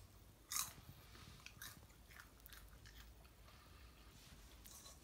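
Faint crunching and pecking as a cockatiel bites into popcorn in a stainless steel bowl, a string of small crackly bites, with one brief louder sound about half a second in.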